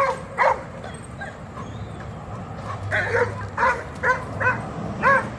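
Dog barking in short, sharp barks: two at the start, then a quicker run of about five from about three seconds in.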